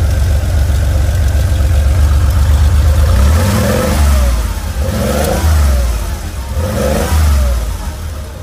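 1979 Porsche 911SC's air-cooled flat-six, breathing through open velocity stacks, idling steadily, then revved in three short throttle blips about a second apart starting some three seconds in.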